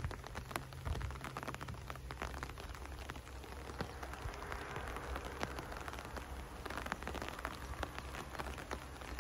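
Steady rain falling, with many small drops tapping on surfaces.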